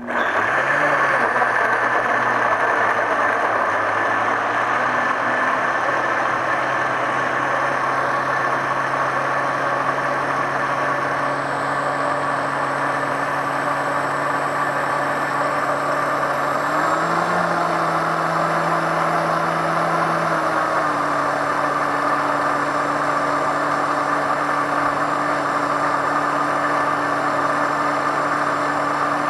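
Tribest Dynapro commercial vacuum blender's 2.5 hp motor running steadily at high speed, blending melon into a smoothie in a jar sealed under vacuum. It starts abruptly, its pitch rises for a few seconds a little past halfway then settles back, and it cuts off at the end.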